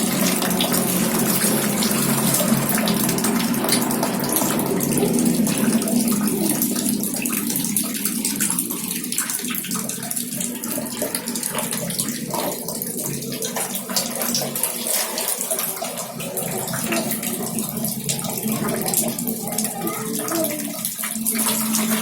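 Water running steadily from a tap and splashing into a container, over a steady low hum.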